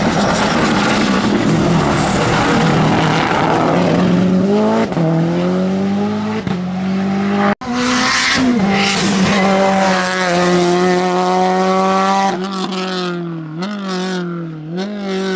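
Hillclimb racing car at full throttle: a loud, noisy engine and tyre sound close by at first, then a clear high engine note that climbs and steps through gear changes. Near the end the note dips and rises twice as the throttle is lifted and reapplied, and the sound fades.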